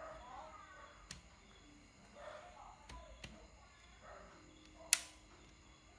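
Faint background with a few light clicks, and one sharp click about five seconds in that rings briefly.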